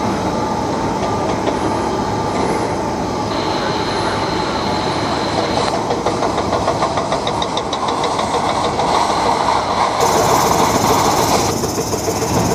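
Airliner jet engines at taxi power: a steady rumble and whine, swelling somewhat louder for a few seconds near the end.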